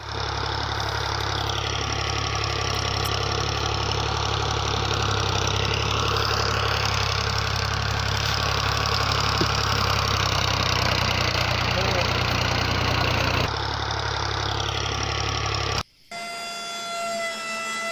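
A motor running steadily, a continuous mechanical drone with a strong low hum. It cuts out briefly about 16 seconds in, then resumes.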